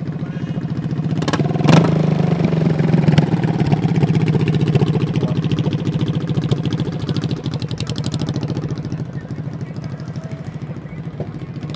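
A motor vehicle engine running loud and close, its rapid firing pulses building over the first two seconds and easing off a little after about seven seconds.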